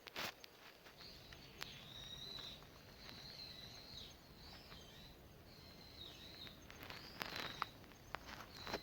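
Faint birdsong: a series of high, wavering whistled phrases, with a few scattered sharp clicks and knocks.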